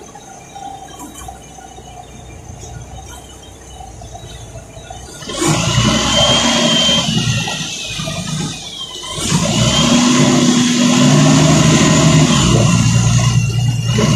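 City bus engine heard from inside the cabin, running low at first, then about five seconds in it throttles up loudly with a high whine as the bus pulls away. The sound drops briefly a few seconds later, then rises again and stays loud.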